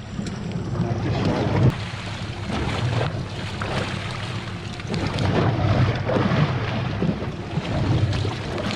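Wind buffeting the microphone in gusts over the wash of choppy sea around a small boat.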